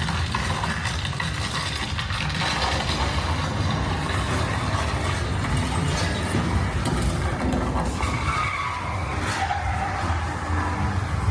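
A steady low rumble with a hiss of road-like noise over it, like a large vehicle moving; brief higher tones come through near the end.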